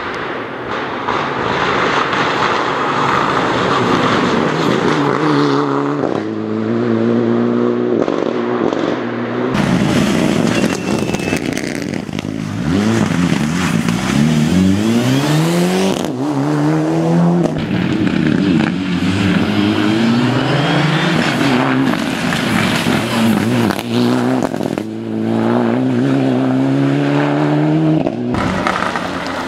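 Mitsubishi Lancer Evolution rally car's turbocharged four-cylinder engine driven hard as it passes. The pitch climbs and drops again and again through gear changes and lifts off the throttle. The sound changes abruptly several times between separate passes.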